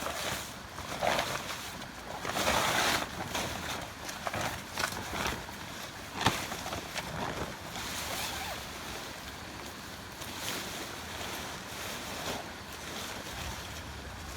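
Steady rain, with irregular drops, knocks and rustles over it: a louder rustling swell a couple of seconds in and a sharp knock about six seconds in.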